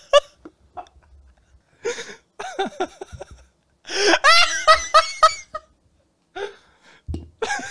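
Laughter in several short bursts, the longest and loudest about four seconds in.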